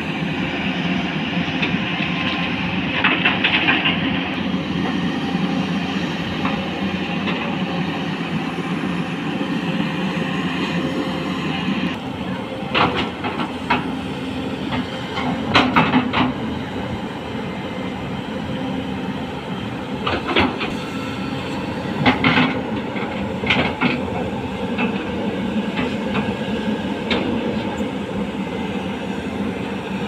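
Diesel engines of two tracked hydraulic excavators, a JCB JS215 and a Tata Hitachi 210, running steadily under working load. Several sharp metallic clanks, mostly in the middle of the stretch, come from the working excavators.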